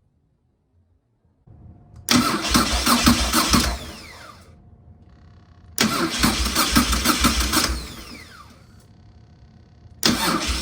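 Electric starter cranking a Moto Guzzi Stelvio's V-twin engine three times, each about a second and a half of fast, even cranking pulses. Each try ends with a falling whine as the starter winds down, and a faint steady hum runs between the tries. The starter turns the engine over instead of only clicking, as it would if the solenoid now gets full current through the added relay.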